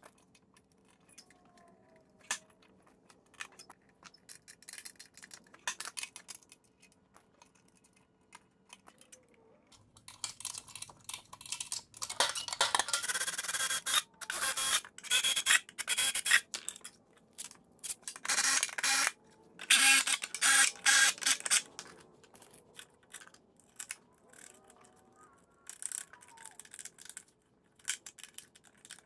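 Cordless drill boring into thin aluminum sheet in two spells of short, loud bursts, with small metal handling clicks and taps before and after.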